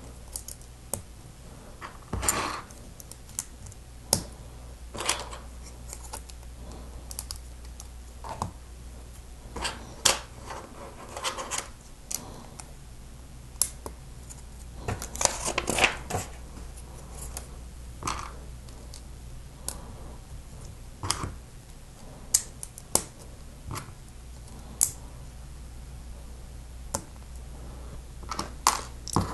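Plastic Lego pieces being handled and pressed together: irregular sharp clicks and snaps as plates go onto a Technic beam, some coming in quick clusters.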